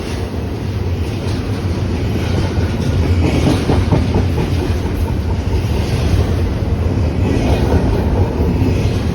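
BNSF intermodal freight train rolling past, a steady heavy rumble with wheels clattering over the rail joints, growing a little louder.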